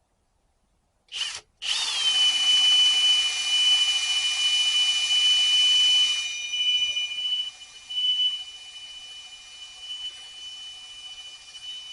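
Electric drill drilling out aluminium rivets: a short trigger pull about a second in, then a steady high whine, loud until about six seconds in, then quieter and uneven.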